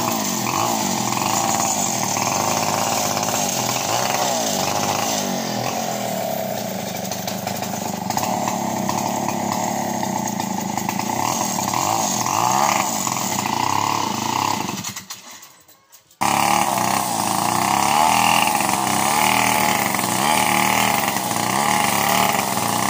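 Two-stroke chainsaw engine running, its pitch rising and falling as it is revved. About fifteen seconds in the sound fades away for a second, then breaks back in suddenly.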